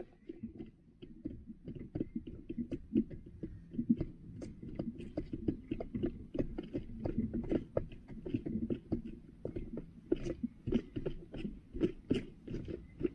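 Hens pecking and scratching right at the microphone: a rapid, irregular run of taps, clicks and scuffs.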